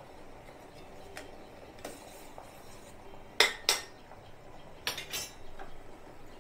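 Metal spoon clinking against a pan of sugar syrup during stirring: several sharp clinks, the loudest coming in two quick pairs past the middle and near the end.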